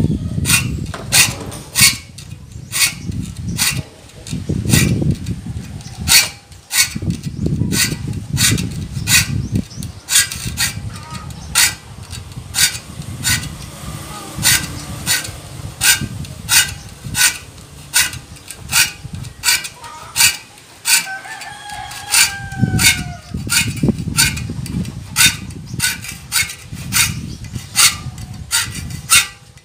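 Hand saw file rasping across the teeth of a handsaw clamped in a vise, sharpening it in short, even strokes a little under two a second. A rooster crows once, about two-thirds of the way through.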